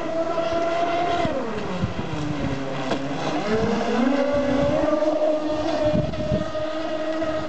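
Large twin-motor brushless RC speedboat running at speed, its electric motors and propellers giving a high whine. The pitch drops about a second in, climbs again around three to four seconds in, then holds.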